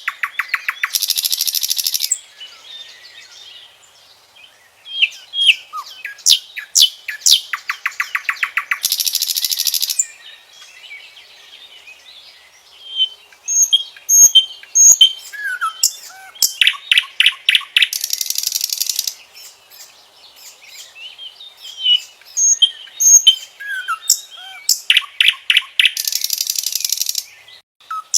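Common nightingale singing: four loud song phrases with short pauses between them. Each phrase is made of varied sharp whistles and quick glides and ends in a fast, harsh run of rapidly repeated notes.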